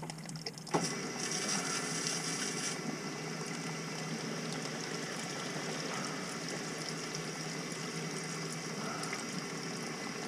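Water running down a cast iron drain line overhead as fixtures upstairs are run to test a seeping lead bend: a steady rushing hiss that picks up about a second in, brighter for a moment soon after.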